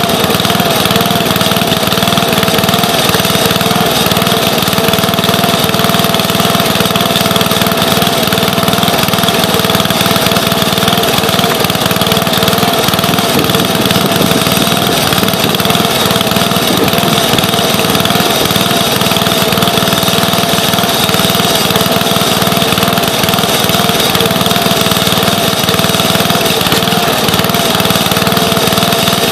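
Small gasoline engine of a towable log splitter running steadily, a constant drone with a slightly wavering hum.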